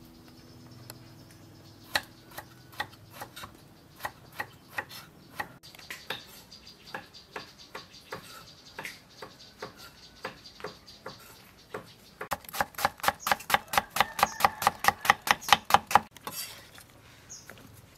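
Kitchen knife cutting gourd on a wooden chopping board: scattered single cuts at first, then a fast, steady run of chops, about six a second, for some four seconds near the end.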